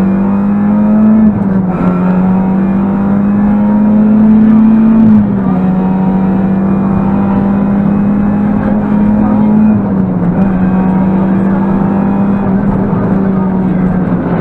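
Rally car's engine at high revs, heard inside the cabin over road noise. The pitch climbs and drops sharply at upshifts about a second and about five seconds in, then holds nearly steady and eases slightly around ten seconds in.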